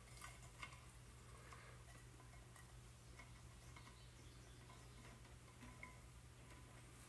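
Near silence: a few faint ticks, mostly in the first second, from the wooden stirring stick touching the glass jar of copper sulphate solution, over a steady low hum.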